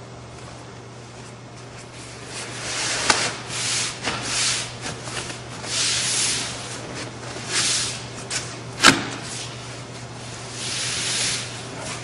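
Cardboard packaging lid rubbing and scraping as it is worked down over the boxed grill, a run of swishing rubs starting about two seconds in. Two sharp snaps, about three seconds in and near nine seconds, the second the loudest, as the lid is pushed down to lock the tabs into its slots.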